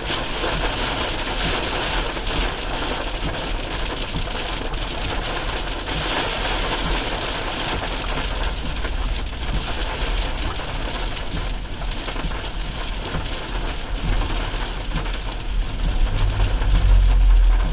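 Heavy rain pelting the roof and windshield of a moving car, heard from inside the cabin as a dense patter over the low rumble of the car on the wet road. The low rumble swells louder near the end.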